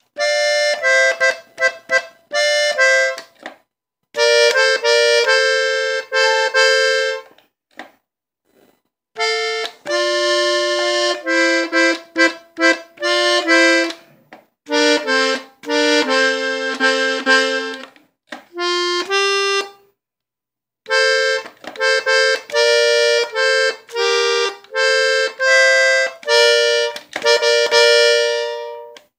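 Hohner three-row diatonic button accordion in G playing a norteño-style intro melody in the key of F. It plays quick runs of notes in several phrases, separated by short pauses.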